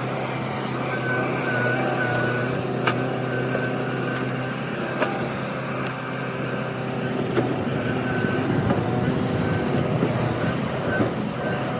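A backhoe's diesel engine runs steadily. A high whine comes and goes over it, and a few sharp knocks sound at intervals.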